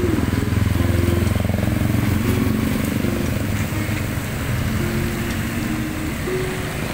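Motor vehicle engine running close by in street traffic: a steady low rumble, a little stronger over the first couple of seconds.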